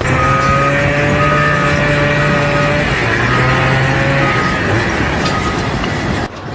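Machine engine running with a steady drone and a high beep repeating about once a second, cut off sharply near the end.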